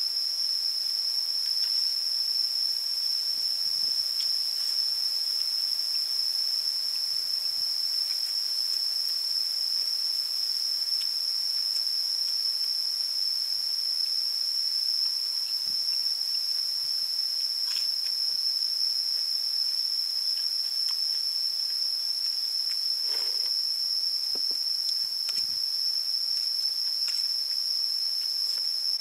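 A steady, high-pitched insect drone that never breaks, with a few faint clicks scattered through it.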